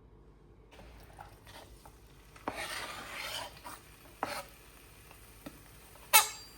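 Kitchen utensils on dishes: a few light knocks, a second or so of scraping and stirring, then one sharp ringing clink near the end.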